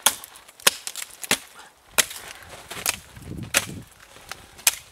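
Dry dead branches snapping off a dead conifer trunk, about seven sharp cracks spaced irregularly over a few seconds.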